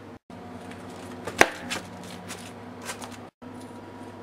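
A low, steady background hum with one sharp click about a second and a half in and a couple of fainter ticks after it. The sound cuts out to complete silence twice, briefly.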